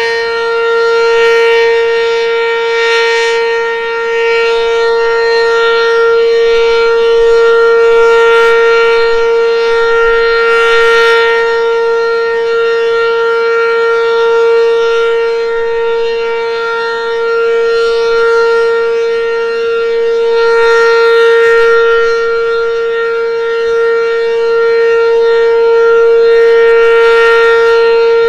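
ACA Banshee 8-port outdoor warning siren sounding the Full Alert signal: one loud, steady tone held at a constant pitch. Its loudness swells and fades about every six seconds as the rotating horn sweeps past.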